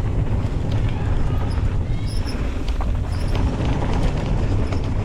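Mountain bike riding fast down a rough dirt trail: wind buffeting the microphone in a steady low rumble, with the tyres and the bike's chain and frame rattling and clicking over bumps.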